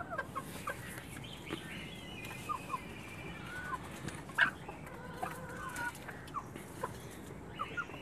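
Desi golden Misri chickens clucking softly while feeding on grain: scattered short clucks, some sliding in pitch, with one longer held call at about five to six seconds and a sharper note a little after four seconds.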